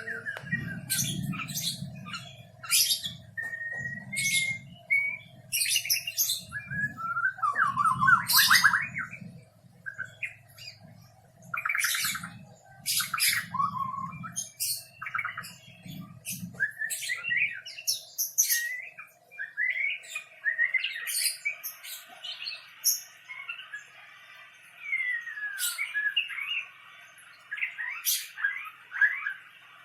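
White-rumped shama singing a long, varied run of loud whistles, sharp chirps and rapid trills in phrases with short gaps. A low rumble underneath stops a little past halfway, and a faint steady hum runs beneath.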